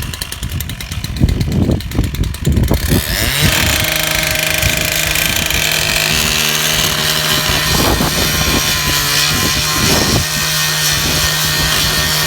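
JCB 5C excavator's Perkins 4.248 four-cylinder diesel running, with a rapid knocking pulse in the first few seconds, then revving up about three seconds in and holding steady at high revs.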